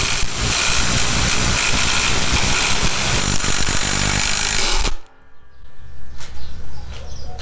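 Skil and Milwaukee brushless impact drivers hammering at once, driving 3-inch lag screws into a wooden beam through 1/2-inch sockets. The rapid impact clatter stops abruptly about five seconds in, when the screws seat.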